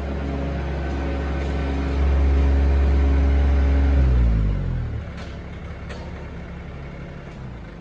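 Kubota ZD1211 zero-turn mower's three-cylinder 25 hp diesel engine running steadily, growing louder about two seconds in. About four seconds in it is shut off and winds down to a stop within a second. A few light clicks follow.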